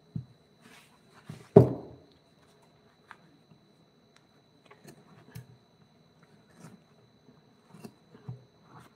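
Scattered knocks, taps and light scrapes of hand work, with one loud thump about a second and a half in.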